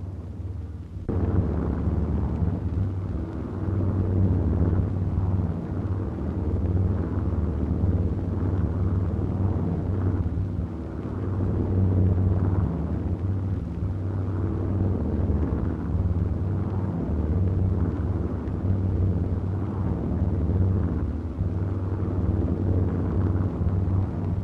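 Massed piston-engined bomber aircraft flying over, a steady low drone of engines that starts about a second in.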